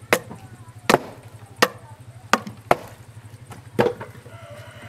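A cleaver being driven down through a large, hard-skinned pumpkin with about six sharp knocks at irregular intervals over four seconds.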